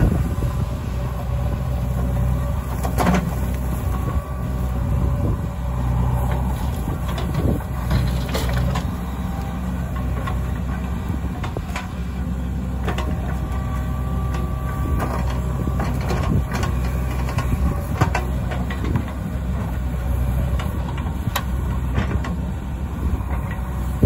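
JCB 3DX backhoe loader's diesel engine running steadily under load while the backhoe digs and swings earth, with a whine and a scatter of sharp knocks from the bucket and falling soil and stones.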